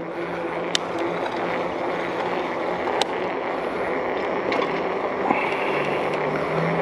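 Steady rush of wind over the microphone and tyre noise from a mountain bike rolling fast on asphalt, with a couple of sharp clicks from the bike about a second and three seconds in.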